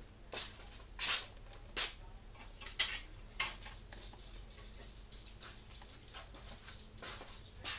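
A dozen or so irregular clicks, clinks and knocks of kitchen things being picked up and handled on the counter.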